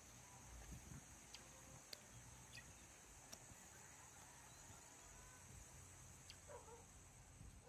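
Quiet outdoor ambience: a steady high-pitched insect drone, with a few faint sharp ticks and soft distant chirps.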